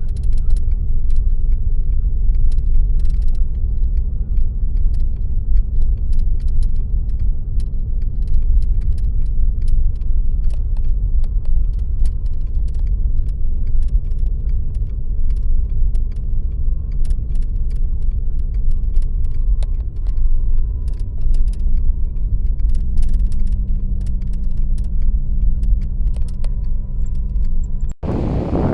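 Car driving: a steady engine and road rumble with small rattles and jingles throughout, which cuts off abruptly just before the end.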